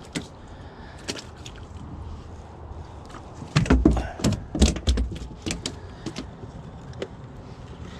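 Scattered clicks and knocks of handling in a small boat after a bass is landed, with a burst of heavier thumps and rattles about halfway through.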